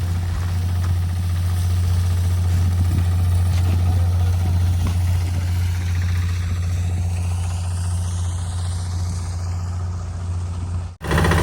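Heavy diesel engine idling steadily with a deep, even hum. The sound cuts out abruptly near the end and picks up again changed.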